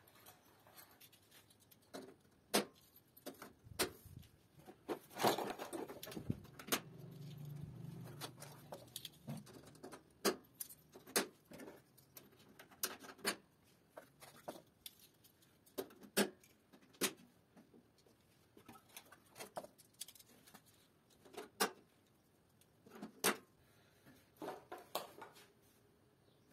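Irregular sharp plastic clicks and knocks, roughly every second or two, as DIN-rail terminal blocks are handled and snapped onto a metal mounting rail. A brief low hum comes in around a third of the way through.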